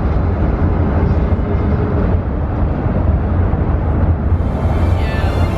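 Steady, loud rumble of wind buffeting the microphone outdoors, heaviest in the deep bass; faint music begins to come in near the end.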